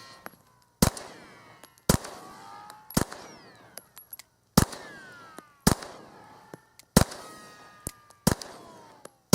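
Glock 19 9mm pistol fired in slow, aimed shots: seven sharp reports about a second apart, with one slightly longer pause between the third and fourth, and an eighth right at the end. Each shot is followed by a short decaying ring.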